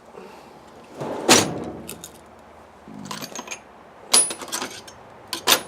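Metal hand tools clanking and rattling on a workbench: three sharp knocks with smaller rattles between, the middle knock ringing briefly.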